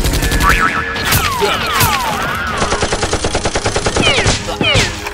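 Rapid automatic gunfire in two bursts, about eleven shots a second, the first ending just under a second in and the second lasting a second and a half near the middle. High falling glides sound between and after the bursts.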